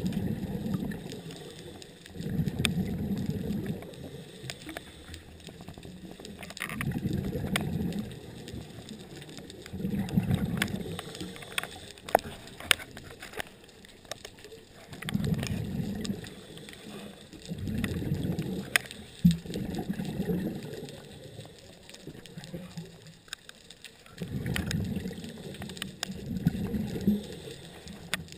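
Scuba diver's regulator breathing underwater: a burst of bubbling exhaust about a second long every few seconds, with scattered sharp clicks between them.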